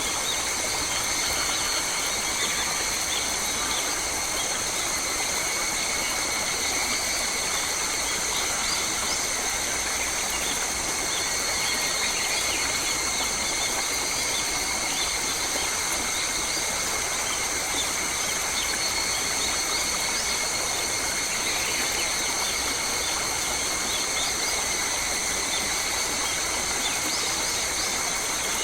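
Forest ambience: a steady high-pitched drone that does not change, with faint, scattered bird chirps.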